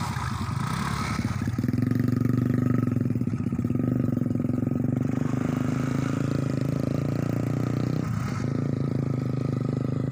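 A small engine running steadily at an even speed, its note settling about a second and a half in.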